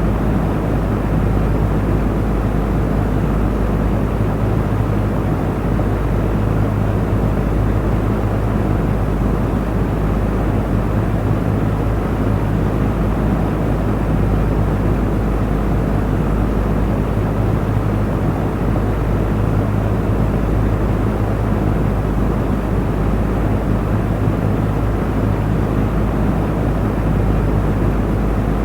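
Electric fan running steadily: a constant whooshing drone with a low hum, no change in speed.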